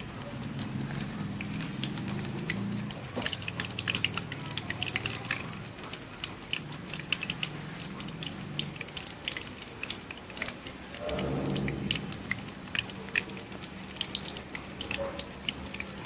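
Battered eggs deep-frying in hot oil in an iron kadhai over a wood fire: a steady run of sizzling, crackling and popping. Low, drawn-out animal calls sound in the background near the start and again about eleven seconds in.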